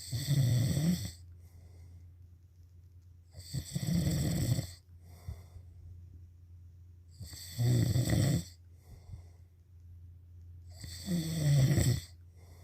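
Snoring: four loud snores, each about a second long, coming evenly every three and a half to four seconds.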